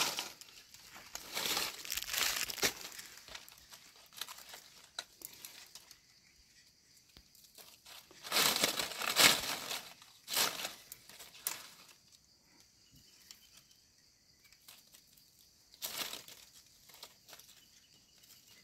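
Dry fallen leaves crackling and rustling in irregular bursts as the leaf litter is disturbed while mushrooms are picked from it, loudest about eight to eleven seconds in.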